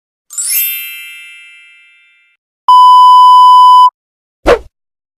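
Three stock sound effects in a row: a bright bell-like ding that fades out over about two seconds, then a steady censor bleep tone held for just over a second, then a very short sweep falling in pitch.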